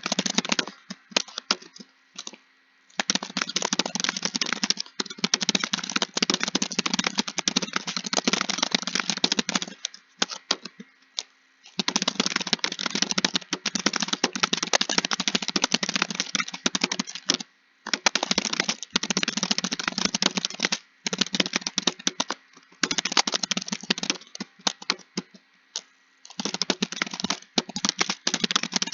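Computer keyboard being typed on fast, in long runs of rapid key clicks broken by short pauses of a second or two.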